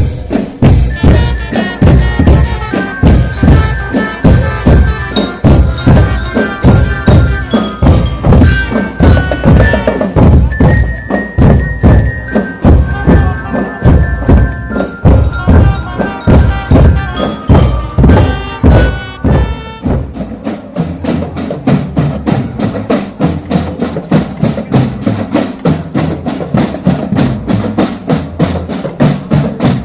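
School marching drum band playing: drums beat a fast, steady rhythm under a bright, bell-like melody. About twenty seconds in the melody stops and the drums carry on alone.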